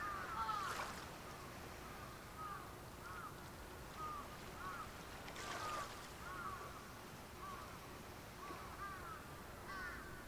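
Birds calling: short chirping notes, often in twos and threes, repeating every second or so over a steady background hiss. Brief noisy rushes stand out about half a second in and again about five and a half seconds in.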